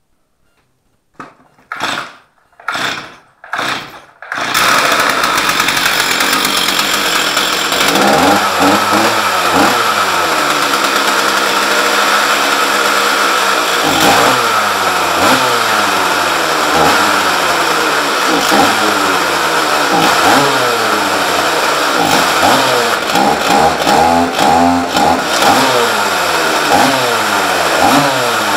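Stihl 044 two-stroke chainsaw engine pull-started: three short pulls on the starter cord, then it catches on the fourth about four seconds in and keeps running, revved up and down again and again. This is its first start after a top-end rebuild with a new piston.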